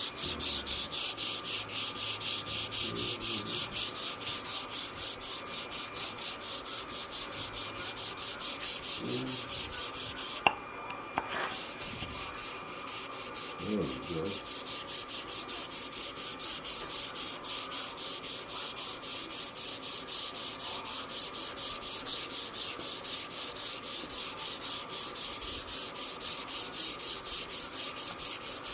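Sandpaper rubbed back and forth by hand over a plaque in its final sanding, in an even rhythm of about three strokes a second. About ten seconds in the strokes stop briefly after a single knock, then resume.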